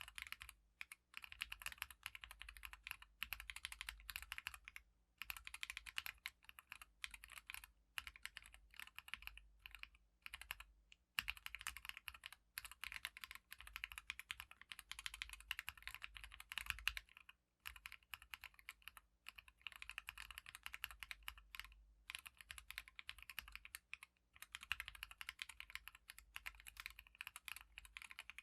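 Fast typing on a Casasagi split ortholinear mechanical keyboard with Everglide Orange switches and SP SA keycaps in a 3D-printed O-ring-mount case: quick runs of keystrokes lasting a few seconds each, broken by short pauses.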